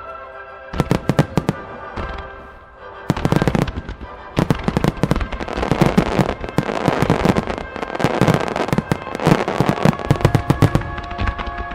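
Starmine fireworks barrage: aerial shells bursting with sharp booms in quick succession, building about four seconds in into a dense volley of bangs and crackling that runs almost to the end. Show music plays underneath.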